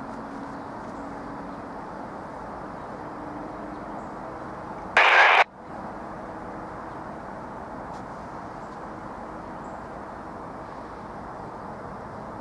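Steady rolling noise of a passing Norfolk Southern intermodal freight train, with a faint low hum. It is broken twice by a short, very loud burst of hiss: about five seconds in, and again briefly at the very end.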